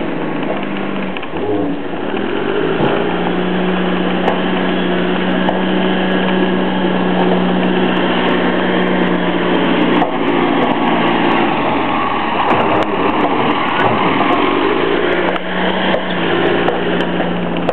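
A small engine running steadily at a constant speed, its low hum holding one pitch under a loud rattling noise.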